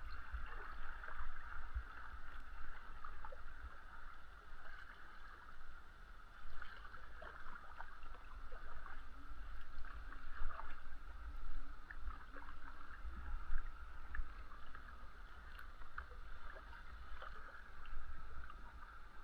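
Kayak being paddled: water splashing and gurgling with irregular paddle strokes over a steady rush of water, with an uneven low rumble underneath.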